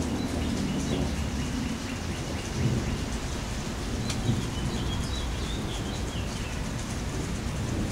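Steady rain falling, with a low rumble of thunder under it.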